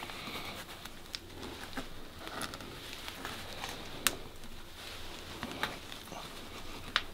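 Scattered small clicks and taps of hand tools working at a motorcycle's rubber handlebar grip, which is stuck fast, glued onto the throttle tube, over a faint steady hum.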